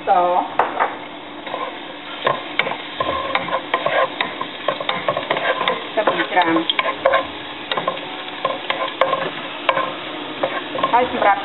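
Chopped garlic sizzling in hot oil in a nonstick pan while a wooden spatula stirs it, with frequent scrapes and taps of the spatula against the pan.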